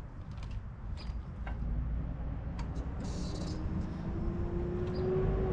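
A few sharp clicks, then the 2022 Suzuki GSX-R750's inline-four engine starting and settling into a steady idle that grows louder about a second and a half in.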